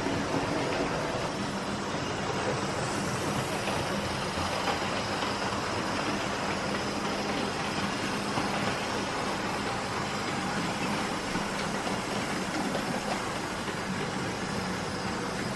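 OO gauge Airfix LMS 4F model locomotive running on track: steady whirr of its tender-drive electric motor with wheels rolling over the rails, a steady hum setting in just over a second in.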